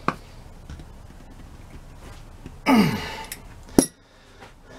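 A man's sigh, falling in pitch, about three seconds in, followed by a single sharp click as he handles the starter's brush-holder parts; a lighter click at the very start.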